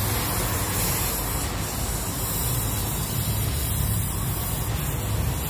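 Welding on a car exhaust pipe, joining the centre muffler to the rear section: a steady hiss with a low rumble under it.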